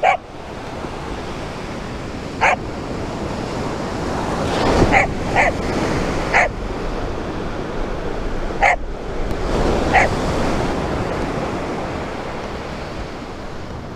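Ocean surf washing steadily up the beach, swelling in the middle, while a dog gives about seven short barks scattered through it.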